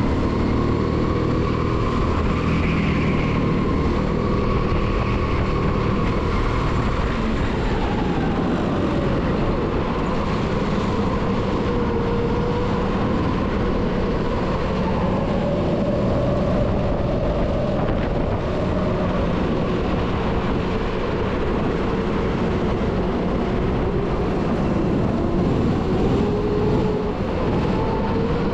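Onboard sound of a 270cc kart engine at racing speed, its pitch rising and falling as the throttle opens and closes through the corners.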